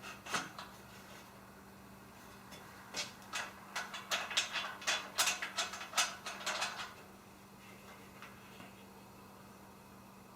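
An irregular run of sharp clicks and knocks from aluminium extrusion parts and hardware being handled during assembly. A couple come about half a second in, and a quicker cluster falls between about three and seven seconds in.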